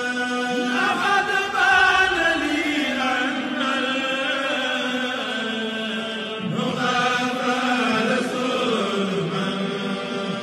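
A single man's voice reciting the Quran aloud in a drawn-out chant, holding long notes and sliding between pitches, as an imam does to lead the standing congregation in prayer.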